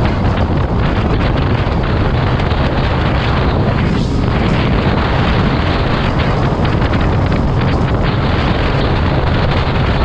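Loud, steady wind rush buffeting the microphone, mixed with the low rumble of a vehicle moving at speed.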